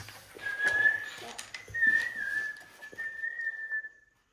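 A person whistling one long, nearly level note with slight wavers, starting about half a second in and fading out near the end. Light knocks come from plastic sand moulds being handled on a table.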